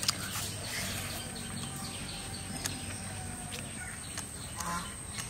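Outdoor ambience: birds chirping over a steady low background noise, with a few short soft clicks.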